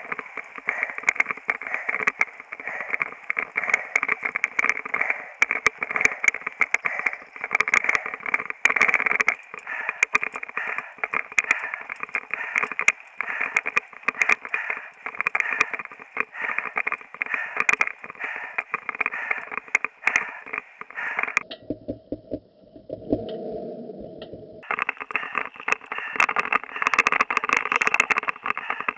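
Mountain-bike ride heard through a helmet camera's microphone on a dirt trail: a steady, muffled rushing noise, crackling with many small clicks and knocks from the rough ground. It thins out for about three seconds near the end.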